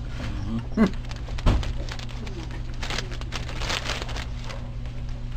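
Newborn Clumber spaniel pup suckling at its mother's teat: faint, irregular clicks and smacks, with a low thump about one and a half seconds in, over a steady low hum.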